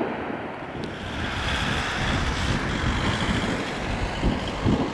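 Aircraft noise buffeted by wind. For about the first second a Boeing 737-800's jet engines run on the runway. After a sudden change, gusty wind rumbles on the microphone, with a faint steady high whine for a second or two.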